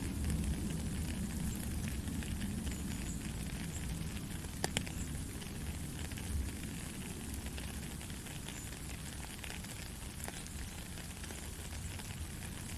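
Steady crackling hiss over a low rumble, with scattered sharp clicks, the loudest about a third of the way in.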